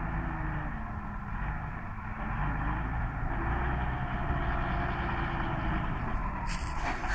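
Massey Ferguson 3085 tractor engine running under load while pulling a seedbed cultivator through soil; the engine note sags briefly about a second in and then picks back up. A louder rush of noise joins near the end as the tractor and cultivator come close.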